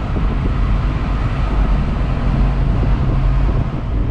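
An engine running at a steady speed, a continuous low hum with a rushing noise over it.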